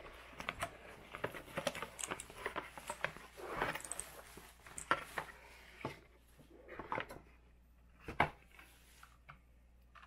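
Bubble wrap and a cardboard box being handled: crinkling plastic mixed with light knocks and scrapes, busy for the first half and sparser after, with one sharper knock about eight seconds in.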